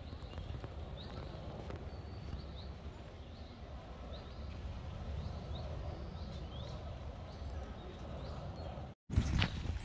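Outdoor park ambience while walking: a steady low wind rumble on the microphone, footsteps on a path, and a small bird giving short high chirps every second or so. The sound cuts out abruptly about nine seconds in and comes back louder.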